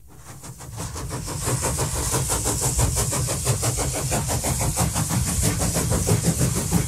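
An engine idling with a fast, even pulse, fading in over the first second or so.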